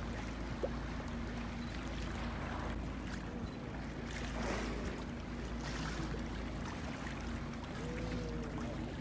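Boat engine running steadily as a low drone, under wind and water noise from open, choppy sea, with a brief rush of noise about halfway through.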